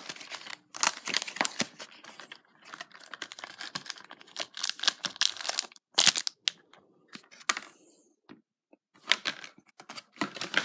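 Plastic blister pack of Pokémon cards being pried and torn open by hand: stiff clear plastic crackling and crinkling against the cardboard backing, with tearing card, in irregular bursts. There is a short near-quiet pause about eight seconds in.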